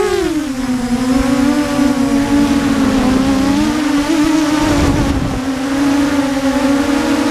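Mini quadcopter's brushless motors and propellers whining. The pitch swells and drops right at the start, then holds mostly steady, wavering slightly with throttle.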